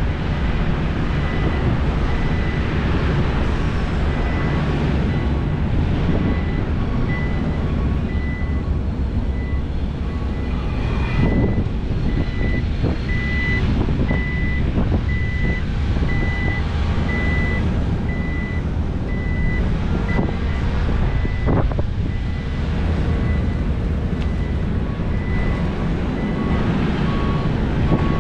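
Heavy diesel engines of a SANY SY500 excavator and dump trucks running steadily under load, with a reversing alarm beeping about once a second. A few sharp knocks stand out, about a third of the way in and again near two-thirds through.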